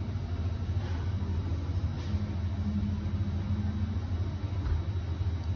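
Steady low rumble, with a faint hum a little higher in pitch.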